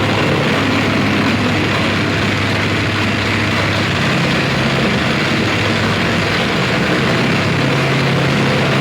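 Live harsh noise music: a loud, unbroken wall of dense distorted noise with a low steady drone underneath.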